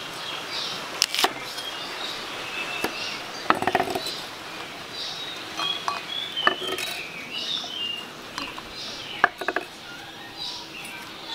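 Knife chopping chilies on a wooden cutting board: a few separate sharp knocks, with a quick run of chops about three and a half seconds in. Small birds chirp in the background.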